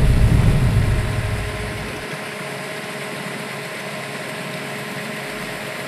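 A deep rumble dies away over about the first two seconds, then a steady, even engine-like drone with a faint hum carries on.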